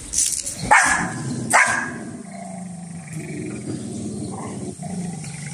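Small dogs squabbling: two short, sharp barks about a second apart, then a low, steady growl.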